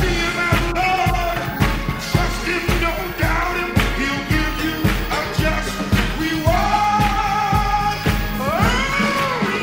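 Disco-gospel recording: voices of a gospel choir singing over a four-on-the-floor kick drum and bass at about two beats a second. Near the end one long held note is followed by a note that slides up and down.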